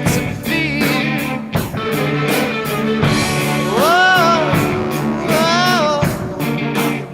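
Rock music: guitar and drum kit with a steady beat, and a lead line bending up and down in pitch about halfway through.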